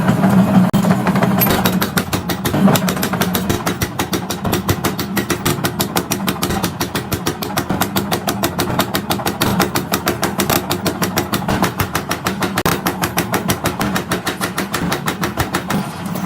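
Machinery running with a steady hum and a fast, even beat of about five pulses a second.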